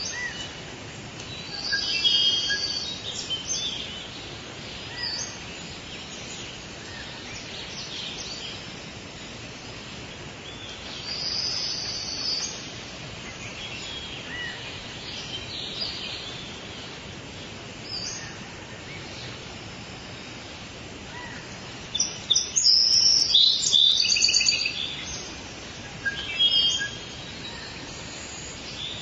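Tropical rainforest ambience: birds calling and chirping over a steady background hiss. There is a burst of calls about two seconds in, and a louder flurry of rapid calls in the last third.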